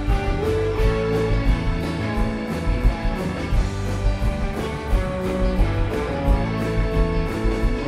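Live rock band playing: electric guitars and keyboards over a steady drumbeat.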